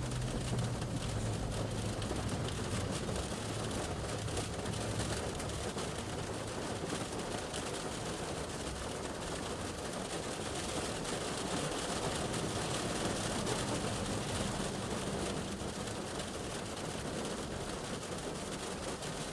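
Shower rain falling steadily on a car's roof and glass, heard from inside the car, with the low hum of vehicles passing on the road near the start and again past the middle.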